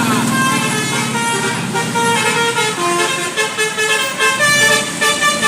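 Bus 'telolet basuri' musical horn playing a melody, its flute-like notes changing in quick steps several times a second.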